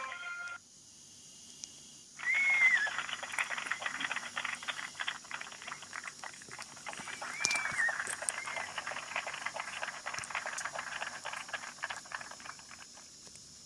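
Sony Ericsson W810i mobile phone playing an animal-like ringtone through its small speaker: a dense, rapid crackling chatter with a few chirping whistles, fading out near the end. A short beep comes at the very start.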